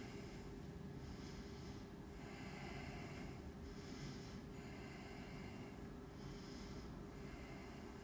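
Faint breathing of a person holding a yoga backbend: a series of short, hissing breaths, about one every second, some a little longer than others.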